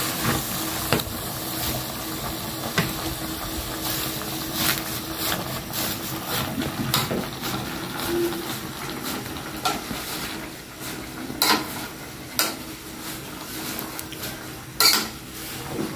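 Cucumber leaves being pushed and stirred by hand in a metal pot on a gas stove: scattered sharp knocks and clinks against the pot over a steady hiss, with the loudest knock near the end.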